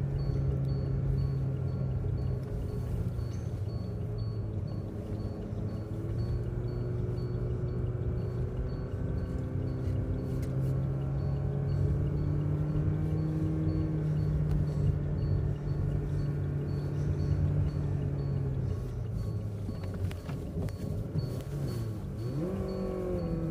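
Car engine and road noise heard from inside the car as it climbs a mountain road. The engine hum holds steady with slow small changes in pitch, then drops and rises again about 21 seconds in.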